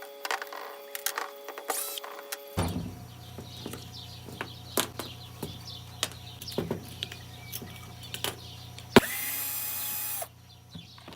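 Scattered clicks and knocks of mower scrap being handled and sorted, with a louder harsh noise lasting just over a second near the end.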